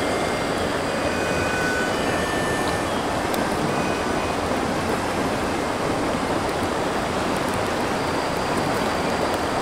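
Steady rushing of a river or stream over rocks, an even noise without a break.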